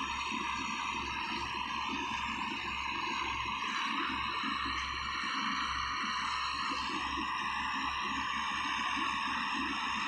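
Heavy earthmoving machine running steadily: a diesel engine's low rumble under a high, held whine.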